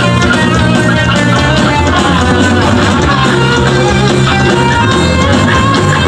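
Loud live punk band playing, with electric guitars carrying a dense, steady wall of sound.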